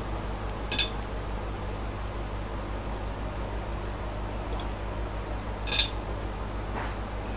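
Metal fork clinking against a plate twice, once about a second in and again near six seconds, with a few fainter ticks, over a steady low hum.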